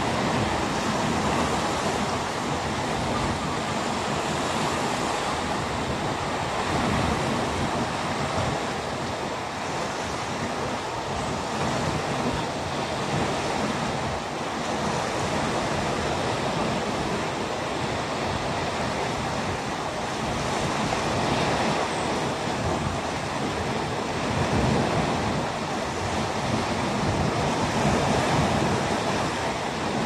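Surf from a calm sea: a steady rush of small waves, rising and easing gently every few seconds.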